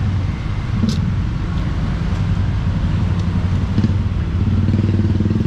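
A motor vehicle engine running steadily nearby, a constant low hum. There is one sharp click about a second in.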